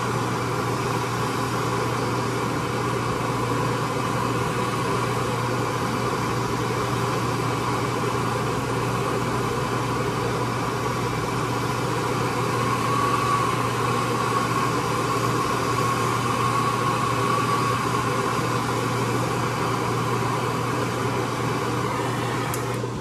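MAP gas hand torch burning with a steady hiss as it heats a shrink-fit tool holder to expand it and release the endmill, over a steady low machine hum.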